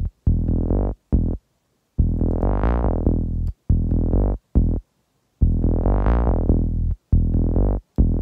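Synth bass line playing back through Logic's Multipressor multiband compressor, with its sub band held down. It plays a repeating phrase of short and held notes over a deep sub, and its filter cutoff opens up bright on the long notes and closes again.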